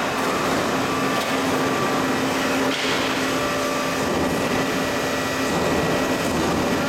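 Single-screw PS extrusion line running: a steady machinery drone with rushing air noise, carrying one constant low hum and two faint higher whines.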